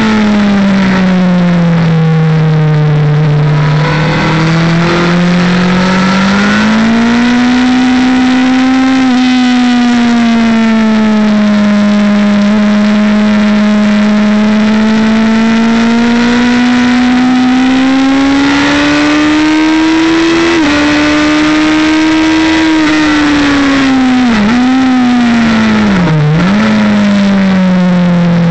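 Motorcycle engine heard from an onboard camera while lapping a race track, with wind rush over the microphone. The engine note rises and falls slowly with the throttle through the corners and drops sharply twice near the end.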